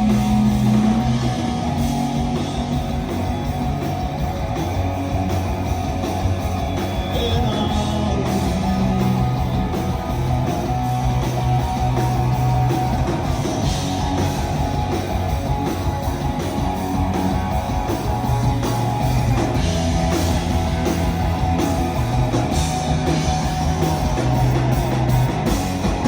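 Live rock band playing loudly through a club PA: electric guitar and bass over drums, in a mostly instrumental passage.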